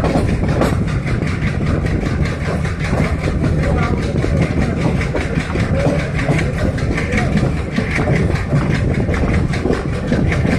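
Diesel train engine running steadily under way, a heavy low rumble with a fast, even knocking rhythm, mixed with the clatter of wheels on the rails.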